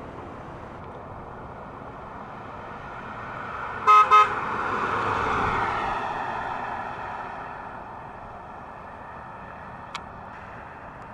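A 1996 Mercury Cougar drives past, giving two short toots of its horn about four seconds in. The sound of the car swells as it goes by, then fades as it drives away.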